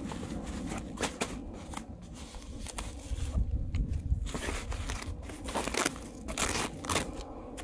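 Sand being pressed and packed down by hand into a fabric umbrella-base sandbag: gritty crunching and scraping of the sand with rustling of the bag's fabric, in short irregular strokes.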